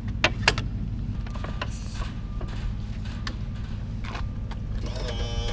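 Sharp metallic clicks and clanks from handling the trailer's stern hardware at the back of a bass boat, over a steady low rumble. A steady whine begins near the end.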